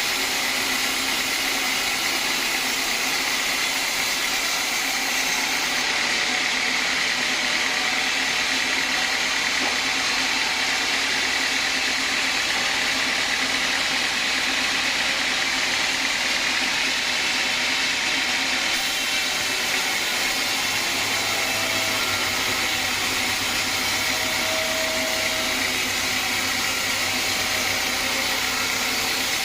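Sawmill band saw running steadily, a continuous machine hiss with no breaks.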